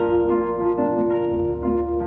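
Single-cone resonator guitar fingerpicked, an instrumental passage of ringing notes with a fresh pluck about every half second.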